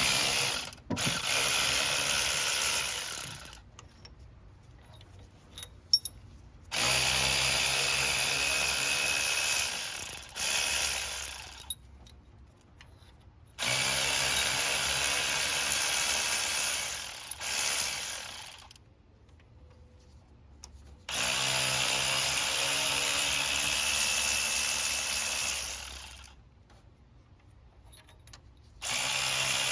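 A cordless power tool with a socket runs bolts out of a small-block Chevy 350 engine. It is a steady motor whine in runs of one to five seconds, with short pauses between them as it moves from bolt to bolt.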